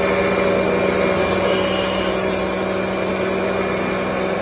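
Motorised paint roller washing machine running its cleaning cycle, spinning a paint roller at speed while water splashes inside: a steady motor hum over a hiss of spraying water.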